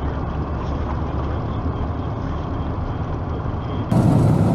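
A motor vehicle's engine running steadily with a low rumble. It gets abruptly louder and fuller near the end.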